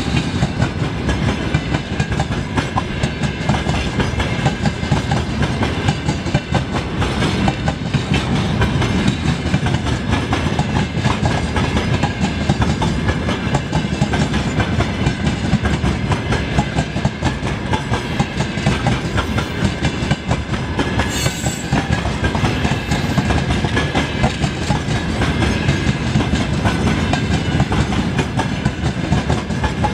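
Grain hopper wagons of a long freight train rolling past, their wheels clattering steadily on the rails.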